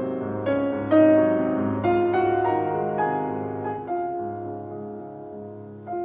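Slow, gentle piano music: single notes and chords struck about once a second, each ringing on and fading, with one note left to sound for about two seconds near the end.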